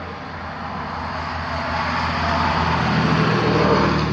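Rushing engine noise of an approaching vehicle with a steady low hum, growing steadily louder.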